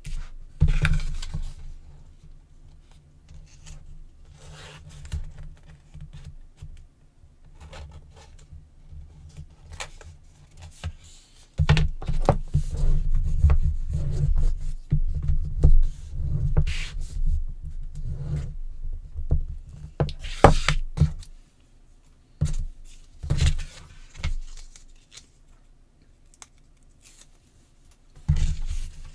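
Hands pressing and rubbing paper strips onto chipboard on a tabletop: scraping and rubbing with scattered knocks and dull thuds. It is busiest through the middle of the stretch and quieter either side.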